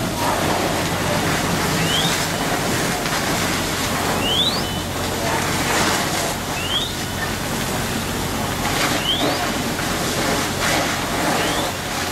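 Loud steady rushing of a large junk-yard fire with hose streams playing on it, over a low steady hum. A short, high rising chirp repeats every two seconds or so.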